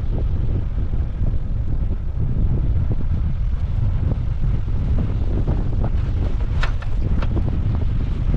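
Wind buffeting the microphone in a steady low rumble, with a few short clicks and knocks late on.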